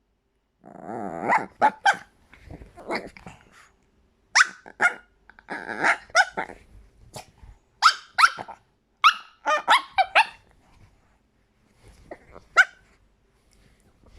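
Chihuahua starting with a short growl, then giving a string of short, high-pitched, squeaky yaps, each falling in pitch.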